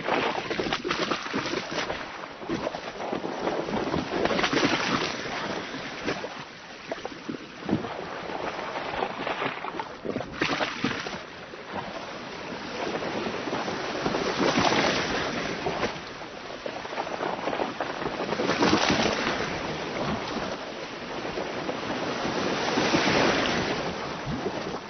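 Sea waves crashing and splashing along a boat's hull, swelling into louder surges every four or five seconds.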